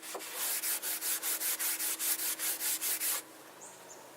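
00 steel wool rubbing boiled linseed oil into old cabinet timber, quick back-and-forth scrubbing strokes about five a second that stop about three seconds in.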